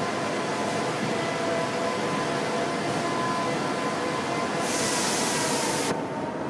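São Paulo Metro Line 1 stainless-steel train running past the platform: a steady rolling rumble with thin whining tones. A loud hiss cuts in about four and a half seconds in, lasts just over a second, then stops suddenly.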